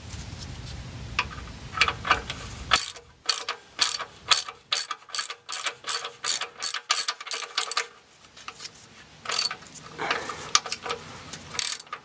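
Socket ratchet clicking in quick, even strokes as the oil drain plug is tightened back into the pan, pausing and then clicking again.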